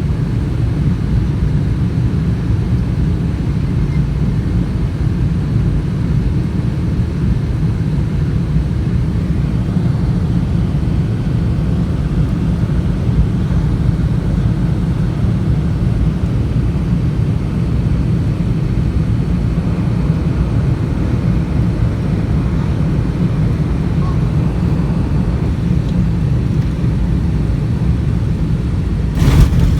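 Steady low rumble of a Boeing 747-400 airliner, heard from inside the passenger cabin on approach, with a sudden louder jolt across the whole range about a second before the end.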